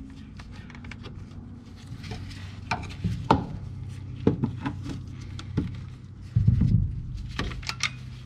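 Irregular clicks and knocks of a screwdriver being fitted against the metal lock ring on top of a fuel tank, with a louder dull thump about six and a half seconds in. A steady low hum runs underneath.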